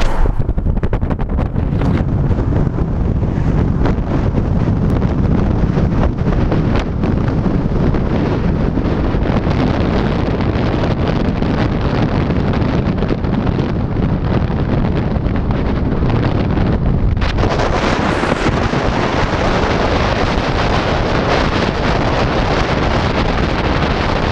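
Wind buffeting the microphone of a camera carried on a moving car, a loud steady rumble mixed with road noise. About two-thirds of the way through, the rush turns brighter and more hissy.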